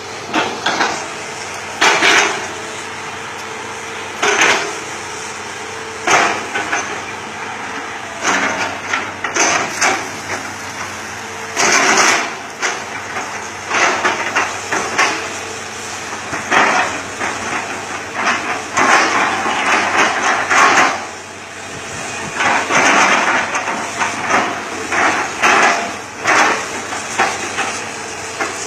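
Hitachi ZX200-5G excavator's diesel engine running hard while its bucket strikes and chops oil palm trunks: sharp blows with wood cracking, about one every two seconds. Later come longer spells of crunching and splintering.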